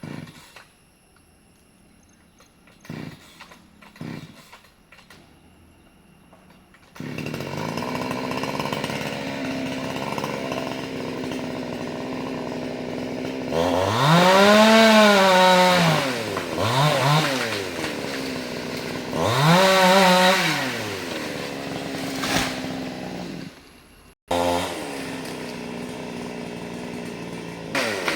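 A few knocks, then a chainsaw engine starts about seven seconds in and idles. It is revved up and back down three times, with the pitch rising and falling each time, then settles to idle, drops out briefly near the end and idles again.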